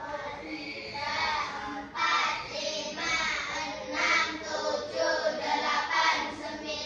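A class of children counting aloud together in Indonesian, a sing-song chorus with about two numbers a second.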